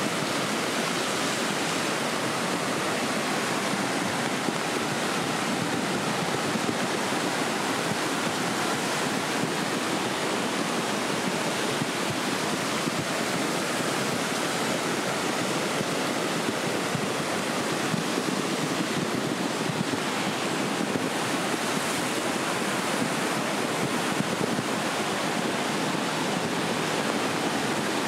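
A river in full flood: a fast, muddy torrent of churning floodwater rushing with a steady, unbroken noise.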